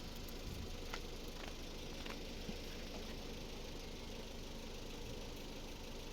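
A steady low engine hum, like a motor idling, with a few faint clicks in the first couple of seconds.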